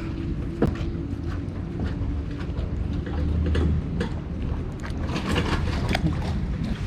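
Wind buffeting the microphone: an uneven low rumble, with scattered light clicks and knocks and a louder gust about three seconds in.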